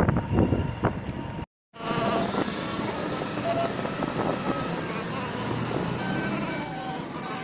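Road traffic noise with a break about a second and a half in, after which it carries on steadier. Several short high tones come near the end.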